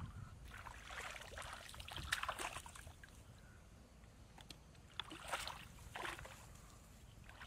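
Shallow water splashing and sloshing as a person wades and moves bamboo fish traps in it, in two spells: through the first few seconds and again about five to six seconds in.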